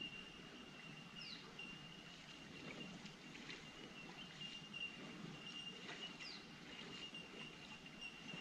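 Faint outdoor ambience: a steady high-pitched tone over a low, even rushing noise, with two short falling bird chirps, one about a second in and one about six seconds in.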